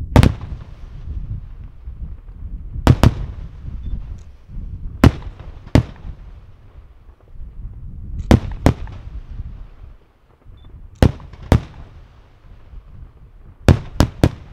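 Aerial firework shells bursting overhead: about a dozen sharp bangs, mostly in pairs a fraction of a second apart, with a low rumble lingering between them.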